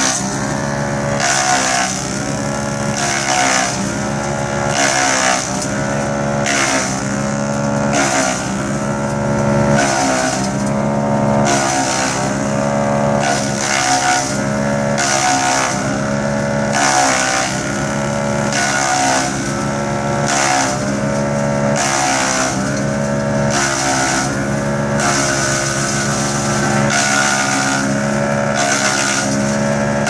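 Drum wood chipper running under load as pine branches are fed in: a steady machine drone whose pitch sags and recovers about once a second or two, each time with a rush of hissing noise as the needles are shredded.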